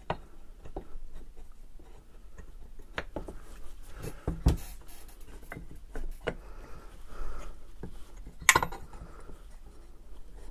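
Handling noises of a BMW M52 single VANOS piston and housing being worked together by hand on a wooden workbench: small clicks, knocks and rubbing, with a louder knock near the middle and a sharp click with a brief ring later on.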